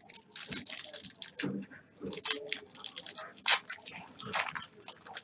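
Foil wrapper of a trading-card pack crinkling and tearing as it is opened by hand: a run of irregular crackles, loudest about three and a half seconds in.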